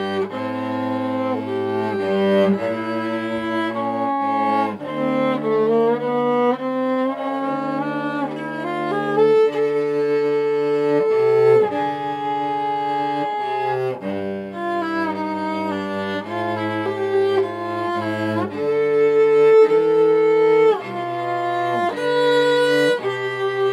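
Violin and cello playing a duet: bowed notes held and moving in steps, the cello carrying a low line under the violin's melody.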